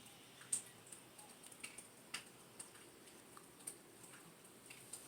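Faint, irregular light clicks and ticks, a few a second, over quiet room tone.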